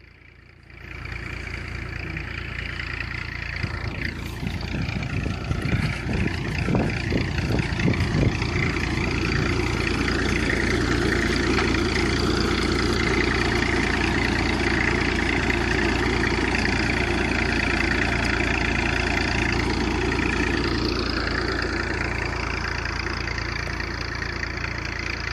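Tractor engine running steadily as it works a plastic-mulch laying machine, the sound swelling over the first couple of seconds, with some irregular clattering a few seconds in.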